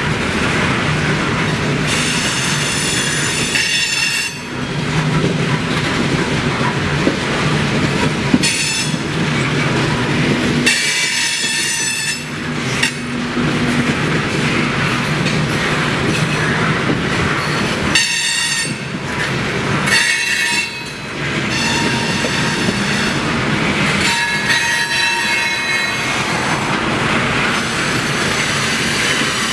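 Freight train hopper cars rolling past on a curve, with a steady rumble of steel wheels on rail. High-pitched wheel flange squeal comes and goes several times as the wheels grind against the curved rail.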